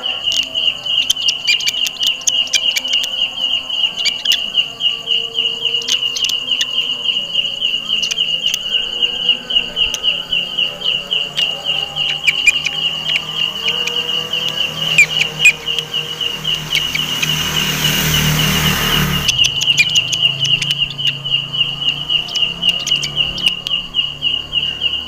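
Belalang kecek (walang kecek) katydid calling: a very loud, high, rapidly pulsing chirp that keeps an even rhythm throughout. Scattered clicks and a brief burst of noise about 17 seconds in come from hands handling the leaves.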